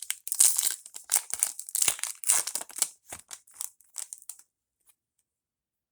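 A trading-card pack's foil wrapper being torn open and crinkled, a dense crackling that stops about four and a half seconds in.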